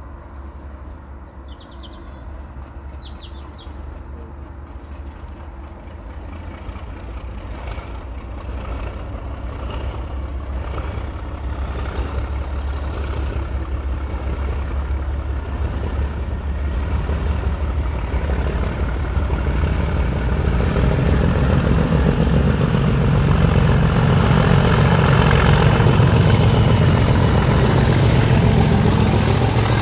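A pair of Class 37 diesel locomotives with English Electric V12 engines, working hard as they pull a train away and grow steadily louder until they pass close by. A high turbocharger whistle rises in pitch over the middle of the run. A few bird chirps come in the first few seconds.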